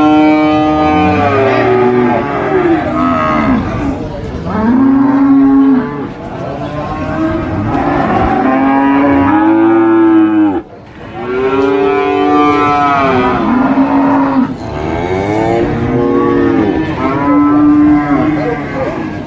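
Cattle mooing: a run of about six long, loud moos, each bending up and then down in pitch, with a brief break about halfway through.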